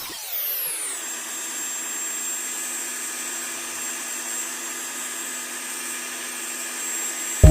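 Electric power tool motor running with a steady whine after its pitch drops and settles in the first second.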